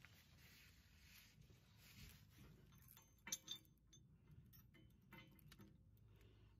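Mostly near silence with faint, scattered metal clinks and clicks of hand tools and hardware on the tractor frame, and two sharper clinks close together about halfway through.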